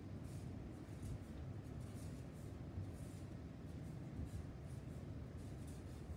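Felt-tip marker writing on chart paper: a run of short, faint scratchy strokes as a word is written, over a low steady background hum.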